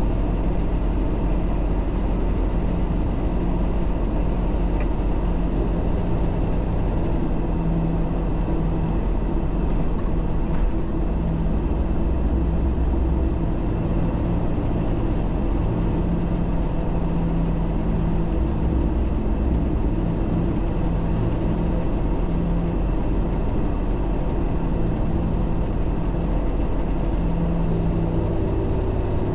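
MAN 4x4 truck's diesel engine running steadily on the road, with constant road and tyre noise and an engine note that shifts a few times.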